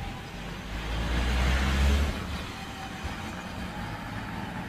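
A road vehicle passing close by: its noise swells to a peak about one and a half to two seconds in, then fades.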